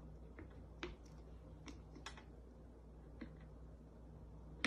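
A handful of faint, scattered clicks as small hard candies are picked off a table and dropped one by one into a candy-loading tube over a soda bottle.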